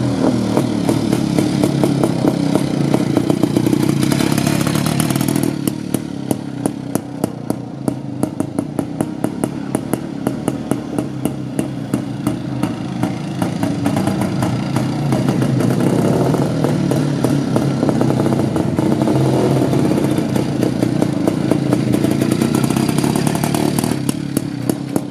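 IZh-49 motorcycle's single-cylinder two-stroke engine running as it is ridden around, with an even rapid exhaust beat. It drops back about five seconds in as the bike moves away and grows louder again in the middle as it comes round.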